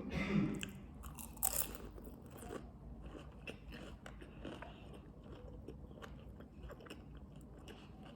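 A person biting into and chewing crunchy food: a bite at the start, a sharper crunch about a second and a half in, then softer crackling chews.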